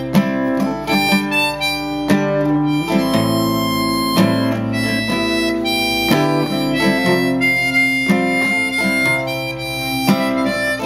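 Harmonica in a neck holder playing a melody with some long held notes, over a strummed and picked acoustic guitar.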